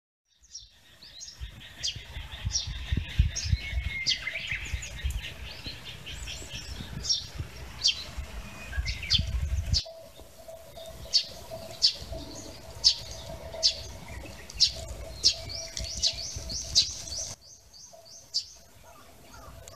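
Small birds chirping and singing. There is varied song at first, then one bird repeating a short, sharp call about once a second. A low rumble sits under the first half, and a faint steady hum under the second.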